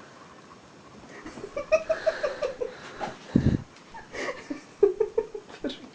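A person laughing in quick short bursts, with a low thump about three and a half seconds in.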